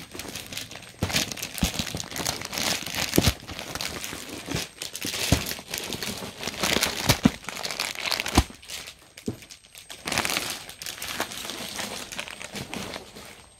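Crinkling and rustling of a suit set and its packaging being handled and unfolded, irregular, with many short sharp crackles.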